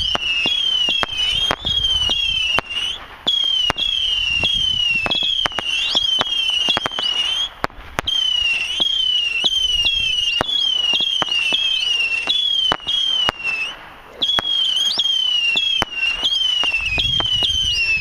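Brothers Pyrotechnics Meteor Blitz missile cake firing a rapid stream of whistling missiles: a continuous warbling shriek that glides down and up over and over, with sharp cracks about twice a second. It pauses briefly twice, a little under halfway and again later.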